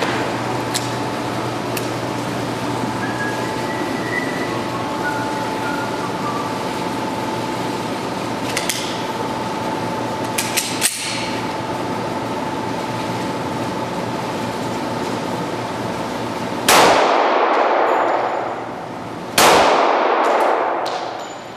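Two shots from a Glock 36 .45 ACP pistol, about two and a half seconds apart, each with a long ringing decay. A steady hum runs underneath, and a few faint clicks come before the shots.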